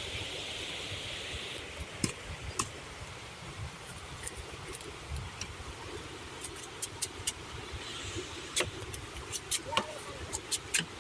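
Twigs and dry vegetation snapping and rustling as someone pushes through dense forest undergrowth, with sharp cracks coming more often near the end, over a low rumble of the phone being handled.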